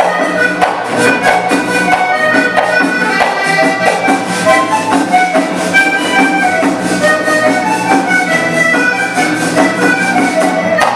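Live Panamanian folk music for the dance el punto, played by a small ensemble of guitars, bass guitar, hand drums and a metal scraper: held melody notes over a steady beat.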